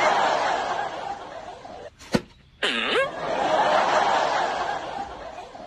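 Canned crowd laughter in two stretches, each fading away, with a sharp click and a short falling whistle-like sound effect in the gap between them, about two and a half seconds in.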